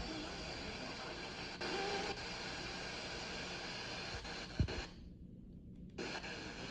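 Radio receiver hiss and static between broadcasts, with two short low thumps and a brief cut-out of the hiss about five seconds in.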